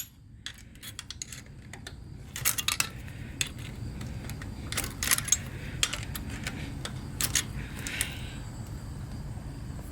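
Irregular metallic clinks and taps of a hand tool against the engine's metal parts while working a tight intake-manifold bolt.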